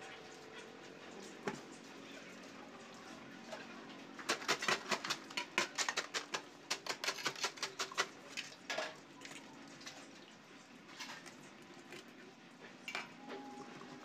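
Ice-cream cart being handled: a quick run of sharp metallic clicks and clatters, with some crunching, lasting about four seconds from the metal canister lids and packed ice. After it come a few scattered single clicks.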